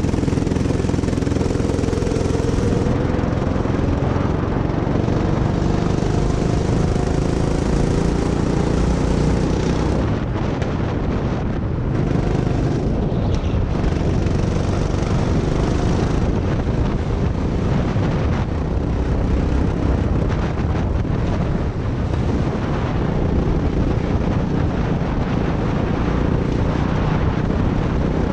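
Go-kart engine running under load on a track, heard from the driver's seat, its pitch shifting slightly in the first few seconds, with a steady hiss of air and road noise over it.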